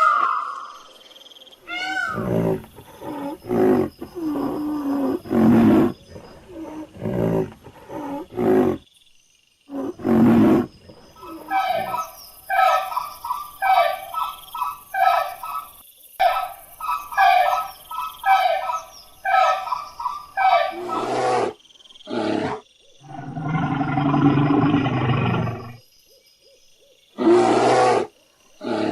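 A succession of different animals' calls, one kind after another: low calls, then a run of short calls repeated about twice a second, then a long, low, drawn-out call.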